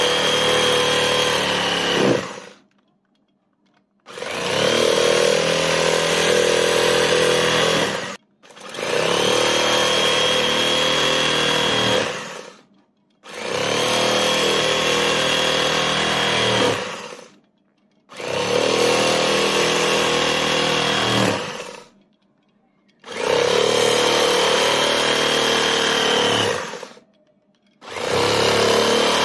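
Electric knife motor running in repeated bursts of about three to four seconds, switched on for each cut through a loaf of bread and off between cuts. Each burst starts and stops abruptly and holds a steady high-pitched whine over a lower buzz. There are seven bursts, the first already running at the start and the last starting near the end.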